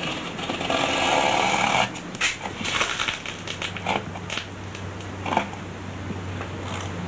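Razor blade cutting through tacky hot-coat resin over a surfboard fin box: a rasping scrape for about two seconds, then a run of short, sharp scrapes and clicks.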